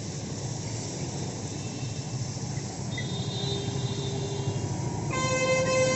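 Hose water spraying with road traffic going by; a faint vehicle horn sounds about three seconds in, then a loud, steady vehicle horn starts about five seconds in and is held.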